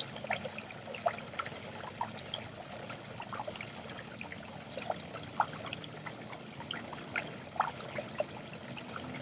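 Water trickling into a sink, with drops plinking irregularly over a steady low trickle.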